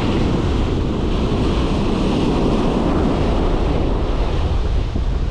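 Ocean surf breaking and washing in, a steady rushing noise that swells in the first few seconds, with wind buffeting the microphone.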